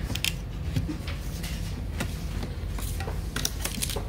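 Scattered light clicks and taps of small plastic and metal parts being handled while fitting a laptop hard-drive caddy, with a few clustered near the end, over a steady low electrical hum.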